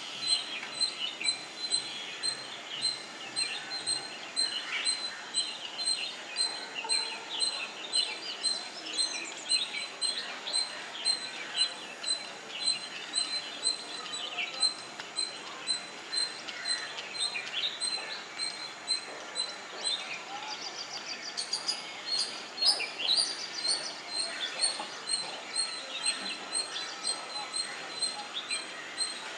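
Ring-necked parakeets calling: a steady run of short, sharp chirps in quick succession, with a brief flurry of higher notes about two-thirds of the way through.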